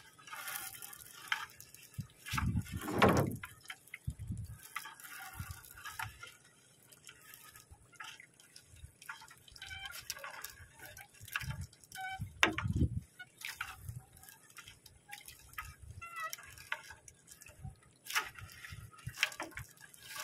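Wet fishing net being hauled by hand over the side of a boat, water dripping and splashing off it in irregular patters, with a few dull thumps.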